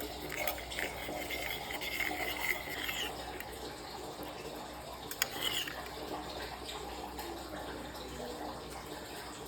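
Steady running water, with a faint high squeak between about one and a half and three seconds in and a single sharp click about five seconds in.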